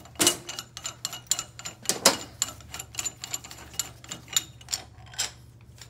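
Steel bearing puller and CVT pulley parts clicking and clinking with a light metallic ring as they are handled and adjusted, a quick irregular series with louder knocks about a quarter second in and around two seconds in.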